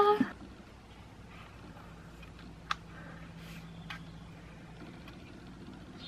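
Quiet room with a faint steady low hum, and two light clicks about a second apart as a compact camera is handled.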